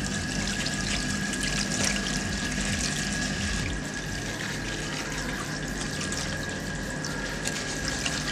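Tap water running steadily from a sink faucet over betel leaves being rinsed by hand, splashing into the basin.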